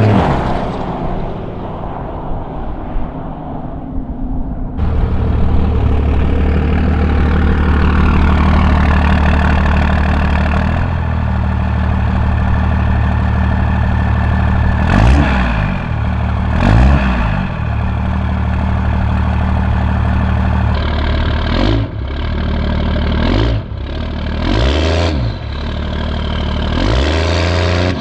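Cummins 5.9-litre turbo diesel running through a 5-inch turbo-back exhaust. It idles steadily after a rev settles down, is blipped twice about halfway through, then is revved in several quick short blips near the end.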